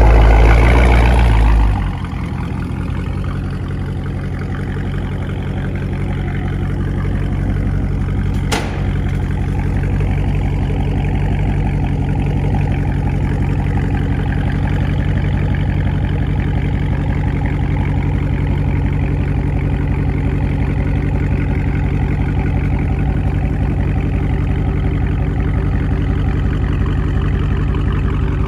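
2019 Dodge Charger Scat Pack's 392 (6.4-litre) HEMI V8, with its mid muffler deleted, running louder for the first two seconds and then settling into a steady idle through the exhaust. A single sharp click is heard about eight and a half seconds in.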